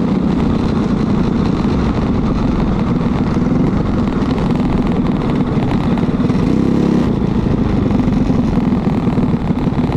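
Briggs & Stratton LO206 single-cylinder four-stroke kart engine running steadily, its note wavering slightly.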